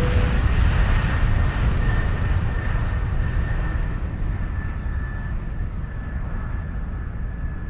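Jet airliner engine noise: a steady rush with a faint high whine that slowly fades and dulls.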